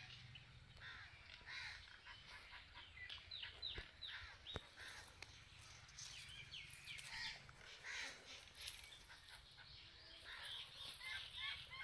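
Birds chirping outdoors: many short calls, with a quick run of four falling whistles about three to four seconds in. A single sharp click comes about three-quarters of the way through.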